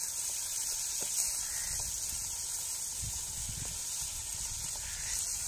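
Chicken frying in oil in a metal pot over a wood fire: a steady sizzle with a few faint ticks.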